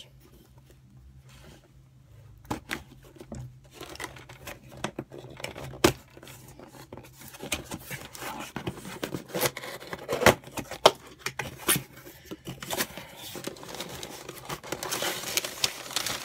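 A cardboard shipping box being opened by hand: scattered clicks and scrapes as the tape and flaps are cut and pulled, then a stretch of tearing and crinkling near the end.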